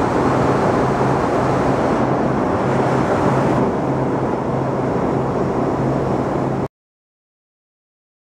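Steady cabin noise of the Zero-G Boeing 727 in flight, engines and airflow, with a faint low hum coming and going. About two-thirds of the way through, the sound cuts off abruptly to total silence.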